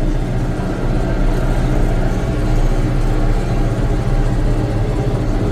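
Tractor's diesel engine running steadily at road speed, about 30 km/h, pulling a loaded grain trailer.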